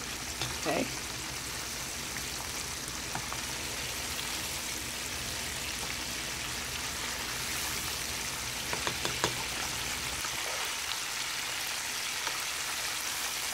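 Ocean perch fillets deep-frying in a large pot of hot oil: a steady sizzle, with a few short clicks about nine seconds in.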